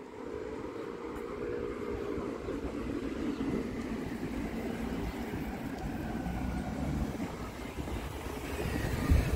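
A motor vehicle going by: a low rumble with a steady hum, getting louder near the end.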